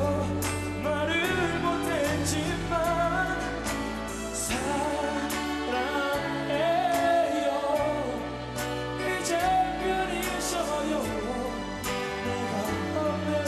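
A man singing a pop song live into a handheld microphone, over instrumental accompaniment with a bass line and percussion.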